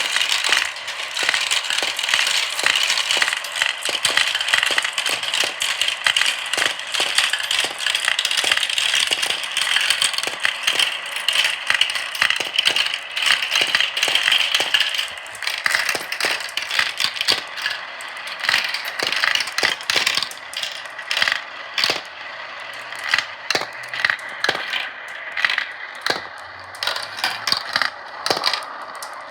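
Many balls rolling and clacking down a marble run track, a continuous rattle of small impacts. For about the first half a steady rolling hiss runs under the clicks; after that the clicks thin out into more separate clacks.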